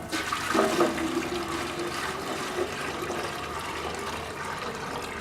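Water pouring into a freshly welded steel quench tank to test its welds for leaks. It starts suddenly and is loudest in the first second, then carries on as a steady rush.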